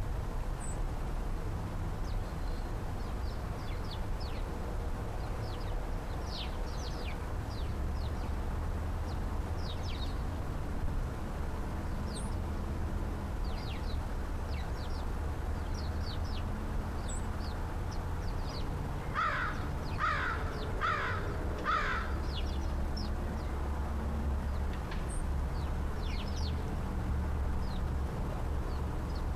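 American crow cawing four times in quick succession, a little under a second apart, about two-thirds of the way through. Small birds chirp faintly on and off throughout, over a steady low rumble.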